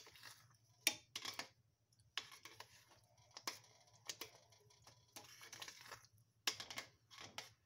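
Metal spoon scraping and clicking against a stainless steel pot while stirring thick, cooking grits, in short irregular strokes, the busiest clusters near the start and near the end.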